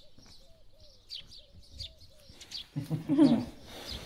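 Small birds chirping repeatedly in the background, short high chirps a few times a second. About three seconds in comes a brief, louder, low voice-like sound.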